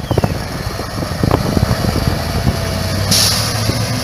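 Crane truck's diesel engine running under load as it pulls an overturned truck on a taut tow cable, with scattered knocks and a short burst of hissing about three seconds in.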